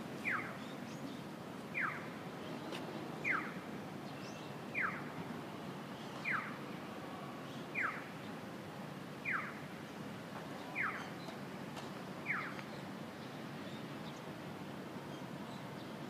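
Japanese accessible pedestrian signal giving its electronic bird-like chirp: a short falling 'piyo' repeated nine times, evenly about every one and a half seconds, then stopping about twelve and a half seconds in. The chirp is the audible cue telling visually impaired pedestrians that the crossing light is green. Steady low traffic hum underneath.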